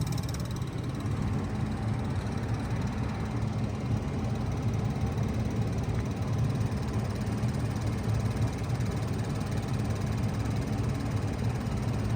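2000 Bard 3-ton wall-hung heat pump running steadily in heat mode: a constant low hum with an even wash of fan noise over it.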